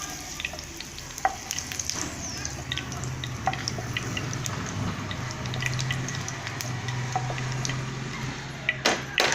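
Vegetable pieces frying in hot oil in a pan: a steady sizzle with scattered clicks of a spatula against the pan, and two sharper knocks near the end.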